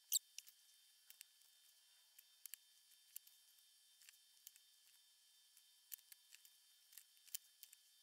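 Faint scattered clicks and ticks of small metal parts being handled, as a helping-hands alligator clip and its jointed arm are moved about. There is a sharper click right at the start.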